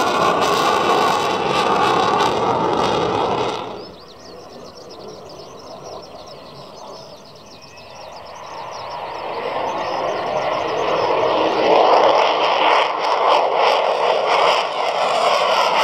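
Jet noise from a Mitsubishi F-2B fighter's single F110 turbofan as it flies touch-and-go passes. The loud jet roar drops off suddenly about four seconds in to a faint, distant rumble, which then builds back up to full loudness over the last several seconds.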